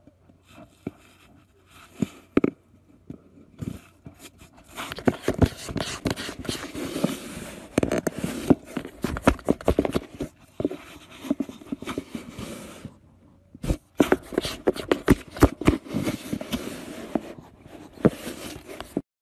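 A cat scratching and tearing at a cardboard box: a run of irregular scrapes and clicks, sparse at first and much busier from about five seconds in, with a brief pause shortly before the end.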